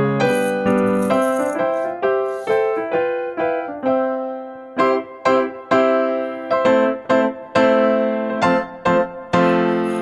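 Background piano music: a bright keyboard melody of struck notes, each starting sharply and fading out.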